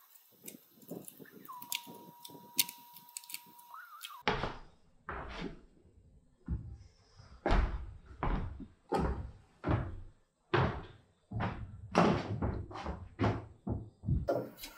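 Wooden knocking: light taps and clicks as wooden pieces are handled, then from about four seconds in a run of about a dozen loud, irregular wooden thuds as a large bentwood ring frame is moved about.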